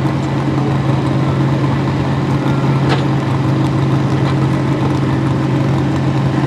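Pro stock 4x4 pulling truck's engine idling steadily, hooked to the sled at the start line, a deep even hum.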